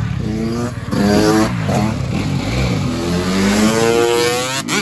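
Several scooter engines revving at once, their pitches rising and falling and overlapping.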